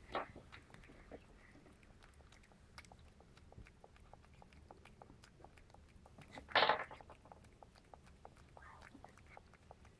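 A cat licking and chewing yogurt off a metal spoon: a steady run of small clicks, several a second, from its tongue and mouth. Two louder brief noisy bursts, one right at the start and one about two-thirds of the way through.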